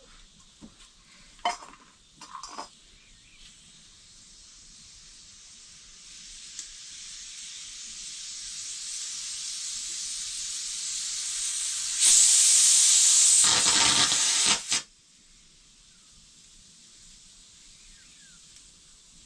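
Pressure cooker building steam: a hiss that grows steadily louder, then a loud blast of escaping steam for about three seconds that cuts off suddenly. A few short knocks come near the start.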